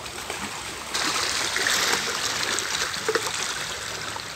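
Shallow sea water lapping and trickling around rocks and the legs of people wading, with small splashes; it gets louder about a second in.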